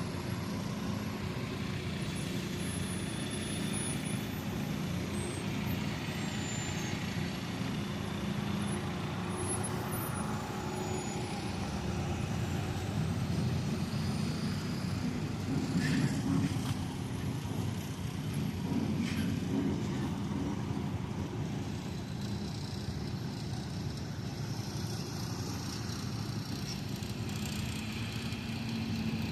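Heavy diesel harvest machinery running steadily. Two brief sharp sounds come about halfway through, a few seconds apart.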